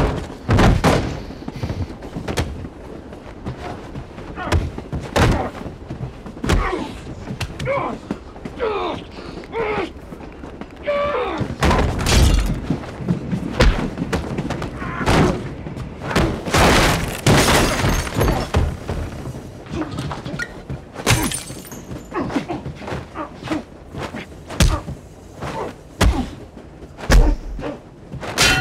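Film fistfight: repeated heavy thuds and impacts of punches and bodies slamming into walls and fixtures, irregular and closely spaced, with grunts and strained vocal effort in between.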